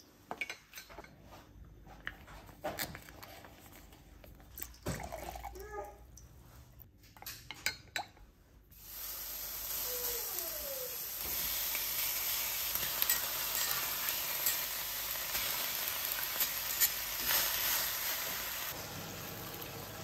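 A wooden spoon stirs and knocks against a glass measuring cup, with scattered clinks. About nine seconds in, raw pork belly slices hit a hot enamelled cast-iron skillet and start sizzling steadily, with tongs tapping the pan. Someone gives a short yawn shortly after the sizzling starts.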